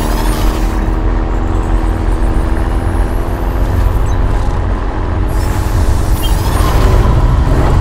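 Heavy mining haul truck's diesel engine running with a steady low rumble and hum. Whooshing sweeps come right at the start and again about five seconds in.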